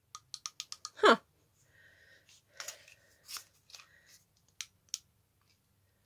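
Repeated clicks of a small UV torch's push-button switch being pressed over and over while the torch fails to light, its batteries flat. About a second in there is one short vocal sound that falls in pitch.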